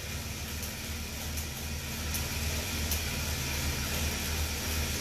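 Road bike on a turbo trainer whirring steadily as the rider pedals easy, a low pulsing hum under an even hiss.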